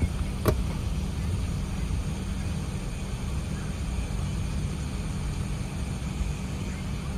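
Steady low rumble of an Airbus A380's cabin as the airliner taxis, with engine and airflow hiss above it. One sharp knock sounds about half a second in.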